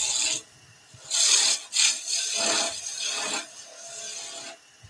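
Skew chisel cutting a wooden spindle as it spins on a lathe: several short shearing strokes of the blade taking shavings off, with brief pauses between them.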